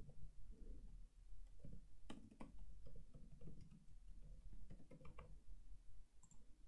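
Faint computer keyboard typing: irregular keystroke clicks as a line of code is typed.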